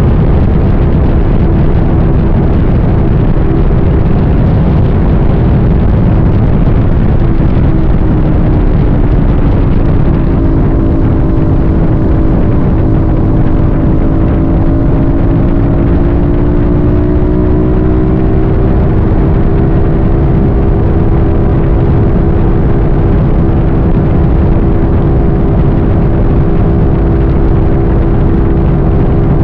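A motor vehicle on the move: a loud, steady rumble of road and wind noise, with an engine note that dips in pitch about a third of the way in, then climbs back and holds steady.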